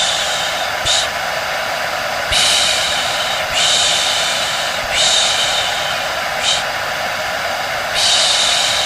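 Steady hair dryer drone with a thin whine in it, overlaid by a repeated 'shh' shushing sound that comes roughly every one to two seconds. Together they make the looped white noise used to lull a colicky baby to sleep.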